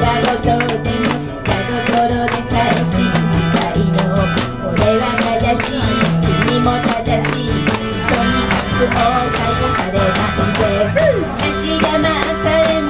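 A woman singing karaoke into a handheld microphone over a backing track with a steady beat.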